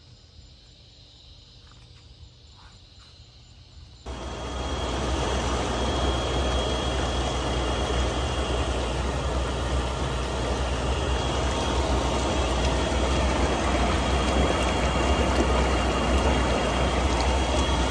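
Inflatable hot tub with its bubble jets on: a steady low hum of the air blower under loud churning, bubbling water, starting suddenly about four seconds in after a quiet stretch of faint outdoor ambience.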